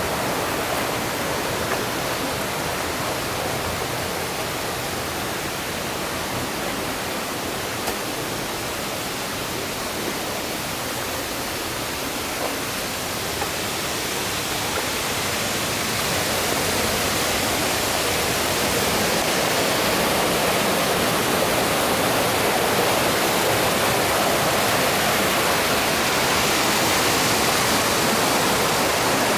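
Mountain stream water rushing and splashing over rocks in a steady, dense wash, growing louder through the second half. A few light knocks stand out briefly in the first half.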